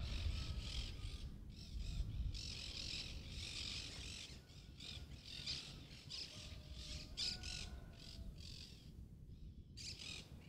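Many birds calling at once in a dense chorus of high chirps and squawks that breaks off briefly every second or so, with a low rumble underneath.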